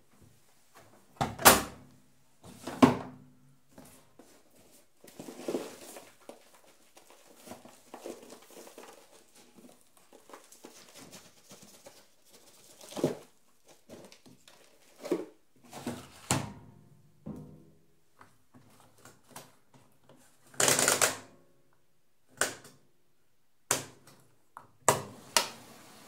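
Washing machine being loaded by hand: a string of separate thunks and clicks with quieter rustling between them, and one longer rushing noise about two-thirds of the way through.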